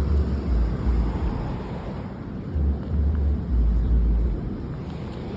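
Wind buffeting the microphone outdoors: uneven low rumbling gusts over a steady rushing hiss.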